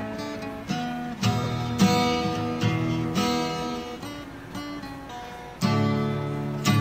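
Background music: an acoustic guitar playing chords, each struck and left to ring.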